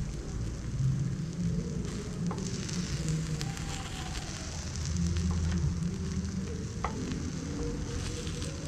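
Takoyaki batter sizzling in a hot takoyaki pan, with a few light clicks of a metal skewer turning the balls, over a steady low rumble.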